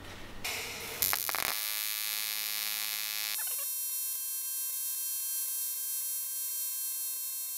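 TIG welding arc on an aluminium swirl pot, a steady electric buzz that starts about a second in. It is harsher and hissier for the first couple of seconds, then settles into a steadier hum.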